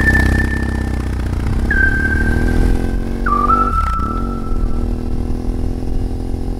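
BMW motorcycle engine running under way, its pitch dropping and recovering twice. Over it, a slow, high melody of long held notes steps downward.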